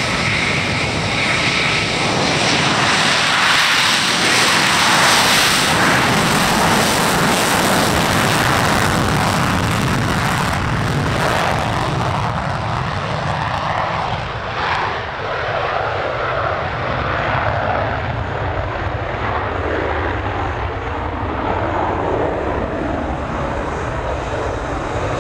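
F-35 fighter jet's afterburning F135 turbofan on a takeoff run: loud jet roar that builds over the first few seconds. Its hiss then thins out past the middle as the jet moves away.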